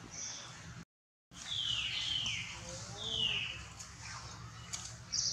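Three short, high-pitched animal calls, each falling in pitch, after a brief dropout in the sound about a second in.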